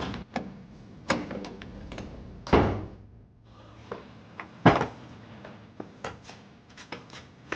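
A door banging and thudding: two heavy thuds, a couple of lighter knocks before them, and scattered small clicks.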